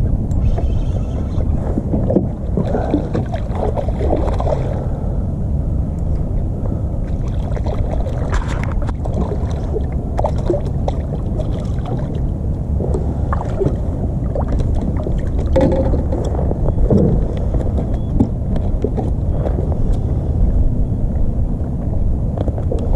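Water lapping and slapping against a plastic kayak's hull, with scattered small knocks, over a steady low rumble.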